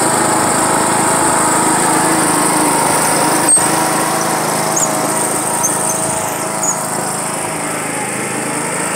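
John Deere riding lawn mower engine running steadily while the mower tows a person through the mud. A single sharp click comes about three and a half seconds in.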